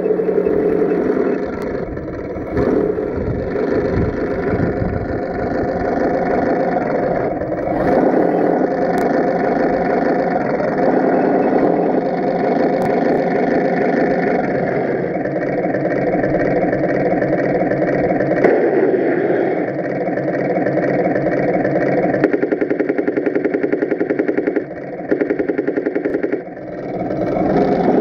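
Tamiya M26 Pershing radio-controlled model tank driving, its simulated engine note steady and mechanical with the whir and clatter of its drive and tracks. The sound dips briefly twice near the end.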